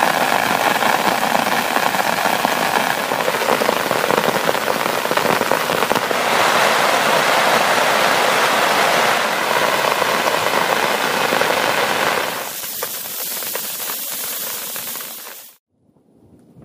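Heavy rain pattering on tent fabric, a dense crackle of drops. It grows quieter about twelve seconds in and cuts off suddenly near the end.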